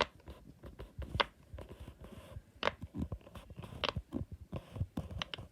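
Silicone pop-it fidget toy being pressed, its bubbles giving soft, irregular little pops and taps, a dozen or so over a few seconds.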